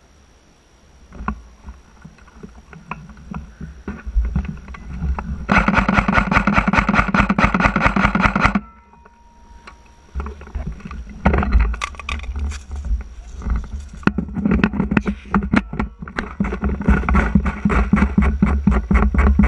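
Airsoft gun fired in rapid full-auto bursts: a sustained run of fast, even clicks lasting about three seconds that stops sharply, then more scattered shots and short bursts. A steady low rumble sits under the shots throughout.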